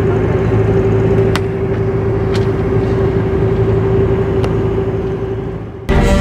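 Toyota Hilux pickup driving at road speed, heard inside the cab: steady engine and road noise with a constant droning tone and a few faint clicks. It fades out near the end and music cuts in.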